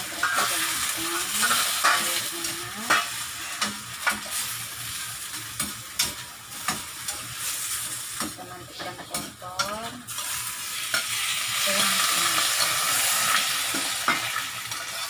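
Vegetables stir-frying in an oiled frying pan: a steady sizzle, with a spatula knocking and scraping against the pan as they are stirred. Near the end the sizzle drops off as the pan is tipped to empty it.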